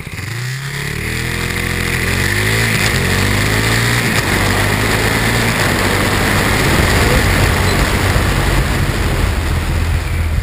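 KTM Duke 390 motorcycles' single-cylinder engines accelerating, rising in pitch over the first two seconds, then running hard in a dense, steady engine din.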